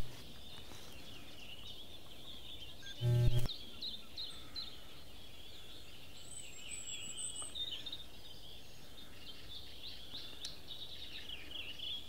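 Small songbirds twittering, with quick, faint high chirps throughout over a steady outdoor hiss. A short loud thump sounds once about three seconds in.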